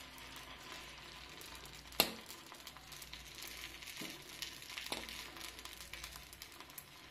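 Faint sizzling of batter being ladled into the hot oil in the cups of a paniyaram pan. There is one sharp clink about two seconds in and lighter knocks near four and five seconds, as the ladle touches the pan.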